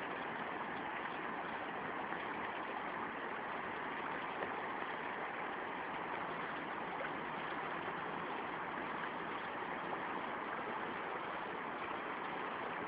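Steady rush of a shallow river running over rocks and rapids.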